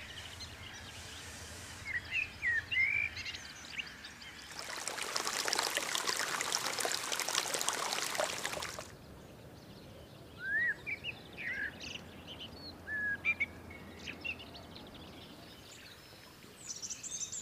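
Small birds calling with short, quick chirps, on and off. For about four seconds in the middle, a rush of running water comes in and drowns them out, then stops.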